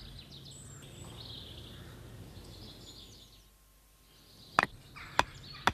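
Faint countryside ambience with birds chirping fades away. About a second later, a mallet knocks in a tent peg: three sharp knocks about half a second apart.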